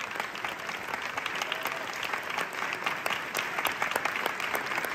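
Audience applauding: a steady, even mass of clapping with sharper single claps standing out.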